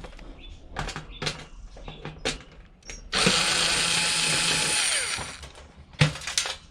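A handheld power drill/driver runs steadily for under two seconds and winds down, between scattered clicks and knocks of the heater's parts being handled.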